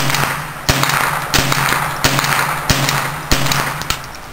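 An AR-15 rifle with a CMMG .22 LR conversion bolt fires semi-automatic shots in steady succession, about six of them, roughly one every two-thirds of a second. Each sharp crack trails off in a short echo.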